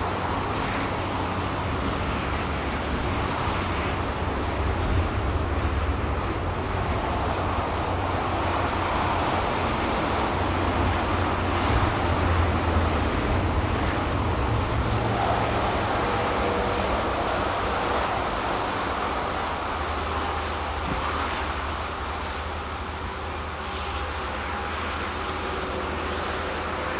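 Steady low rumble of distant vehicles, with faint steady tones joining in about halfway through.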